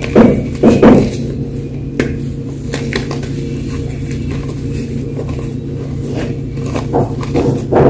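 Blocks of gym chalk being crushed and crunched: a few loud crunches in the first second and again near the end, with small crackles and snaps between, over a steady low hum.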